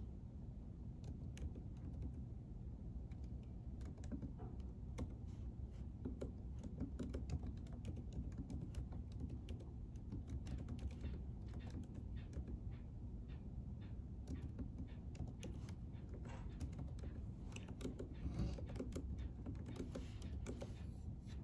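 Typing on a computer keyboard: an irregular run of soft key clicks, with a few louder taps, over a steady low room hum.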